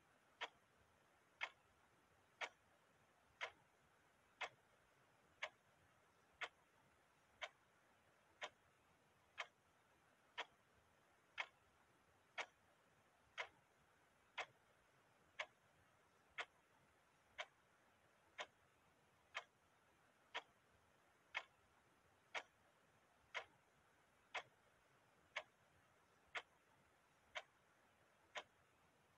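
A clock ticking steadily, one sharp tick a second, evenly spaced.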